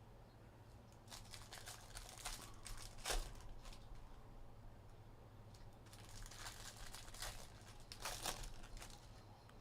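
Faint crinkling and rustling of Bowman Jumbo trading-card pack wrappers and cards being handled, in short scattered bursts a second or so apart.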